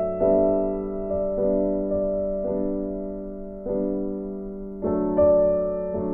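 Background piano music: a slow, gentle tune of struck notes and chords, a new note about every second, each ringing and fading.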